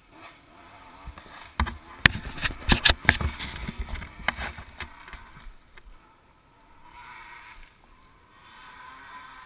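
A dirt bike jolting up a rough, rocky trail: a run of clattering knocks and scrapes for a few seconds, with no clear engine note. A faint hum comes in twice near the end.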